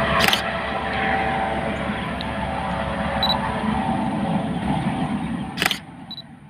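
AS365 N3 Dauphin helicopter flying away, a steady turbine and rotor sound that fades out near the end. Two sharp clicks, one just after the start and one about a second before the end.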